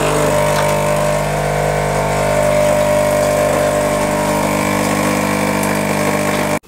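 Coffee machine running with a loud, steady mechanical hum, which cuts off abruptly near the end.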